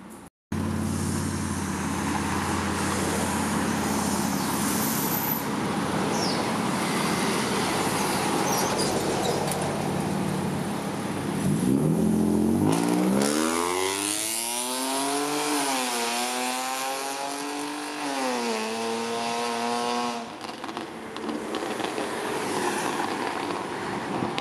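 Mercedes-Benz E230 (W211) petrol six-cylinder with an aftermarket exhaust, loud. It holds a steady note for about twelve seconds, then accelerates hard, its pitch climbing and dropping back at each gear change, before fading out near the end into passing traffic.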